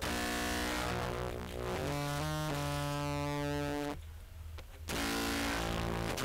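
Looped contrabass clarinet phrases played back through a Z.Vex Fuzz Factory fuzz pedal: low sustained notes with a fuzzy, buzzing edge, changing pitch every second or so. The sound drops out for about a second roughly four seconds in, then resumes.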